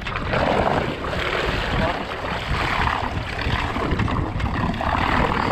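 Water rushing and splashing along the hulls of a small sailing trimaran under way, in repeated swells, with wind buffeting the microphone in a low rumble.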